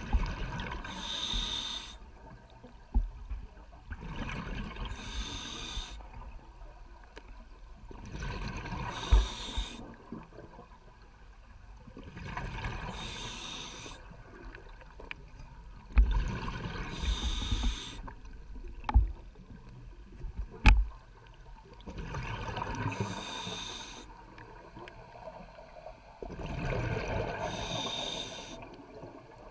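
A scuba diver breathing through a regulator underwater: slow, regular breaths, each exhalation a gush of bubbles, seven in all, about every four seconds with one longer pause. A few sharp knocks fall between the breaths.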